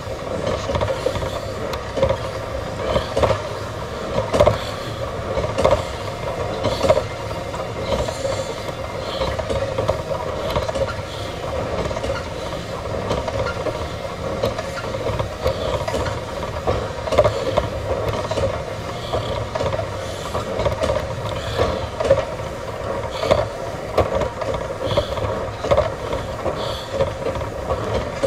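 Gym cardio machine running under a steady workout, with a constant hum and a rhythmic rattling clatter a little under once a second, in time with each stride.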